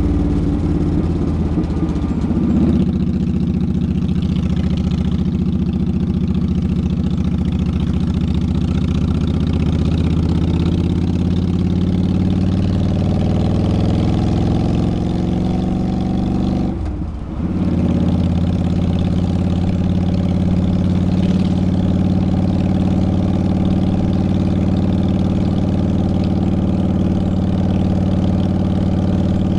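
Motorcycle engine running while riding, its pitch climbing slowly with the revs, then dropping off briefly about halfway through before it settles back to a steady run.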